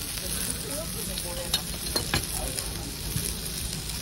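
Thick slices of pork belly sizzling steadily on a charcoal grill grate, with a few sharp clicks about halfway through.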